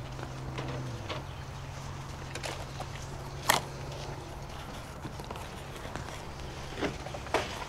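A small cardboard product box handled in the hands: a few sharp taps and clicks, the loudest about three and a half seconds in, over a steady low hum.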